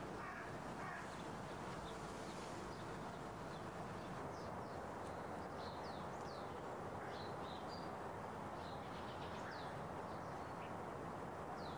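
Faint outdoor ambience: steady background noise with small birds chirping, short high chirps scattered through it from about four seconds in.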